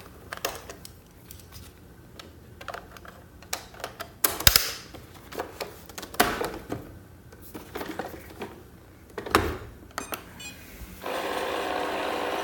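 Plastic clicks and knocks as an iLife A4 robot vacuum is handled and its roller brush taken out. About eleven seconds in the vacuum starts up and runs with a steady whirring hum: the unwanted noise it makes even without the roller.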